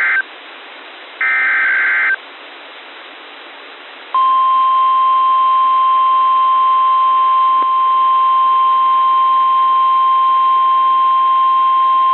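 NOAA Weather Radio over a receiver with a steady hiss: two short warbling SAME data bursts of the alert header, then a long steady alarm tone of about 1 kHz, the 1050 Hz weather alert tone, starting about four seconds in and running on. A single faint click falls partway through the tone.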